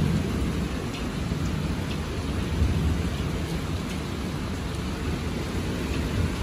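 Heavy rain pouring steadily in a thunderstorm, with a low rumble of thunder underneath and a few close drops ticking.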